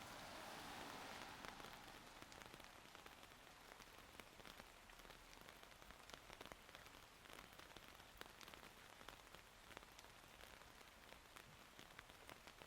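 Quiet steady rain, with many individual drops ticking close by. A louder hiss in the first two seconds fades away.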